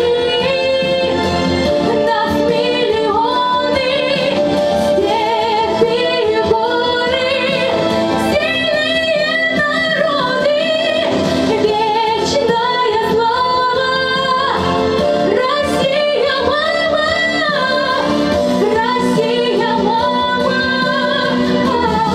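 Young woman singing a solo pop song over instrumental accompaniment, with vibrato on her held notes.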